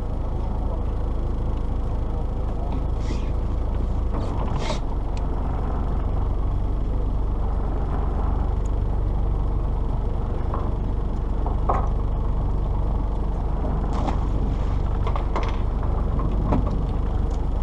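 A fishing charter boat's engine running steadily as a low rumble, with occasional short clicks and knocks on deck.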